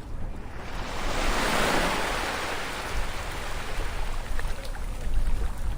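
Ocean waves on a shore: a wave swells about a second in, breaks into a broad wash and slowly fades away, over a low steady rumble of surf.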